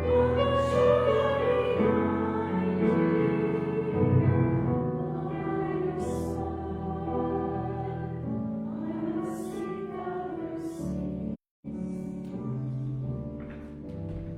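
A song sung with instrumental accompaniment, held notes and a wavering vocal line. The sound cuts out for a split second about eleven seconds in.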